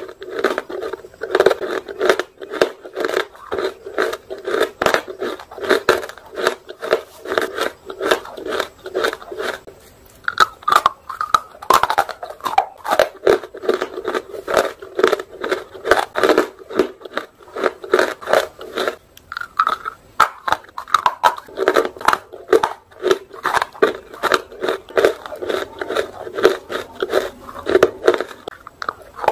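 Close-miked biting and chewing of dry, roasted nakumat, crumbly white chalk-like lumps, making a quick run of crisp crunches several times a second.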